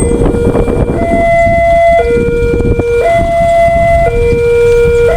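Railway level-crossing siren sounding a two-tone hi-lo alarm, switching between a lower and a higher steady tone about once a second, over steady low noise.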